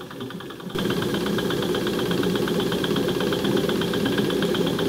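Toy stationary steam engine running, a fast, even chug of exhaust puffs; it gets much louder less than a second in.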